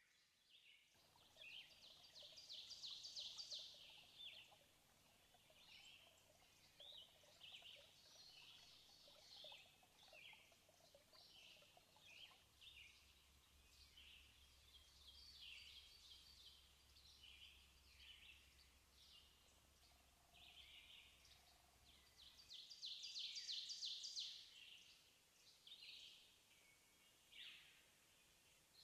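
Birds chirping and twittering in the background, with two bursts of rapid trilling, one a couple of seconds in and one near the end, over a faint steady low hum.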